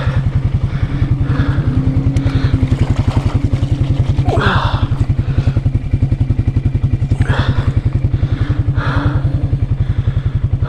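Can-Am Outlander 700 ATV's single-cylinder engine idling with a steady, rapid pulse, neither revving up nor dying down. A few short, brighter noises come and go over it, the clearest about four seconds in.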